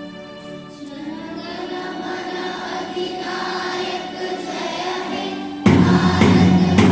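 A group of children singing together to an instrumental accompaniment. About a second in the voices come in over the held instrument chords, and near the end the singing and accompaniment suddenly get much louder.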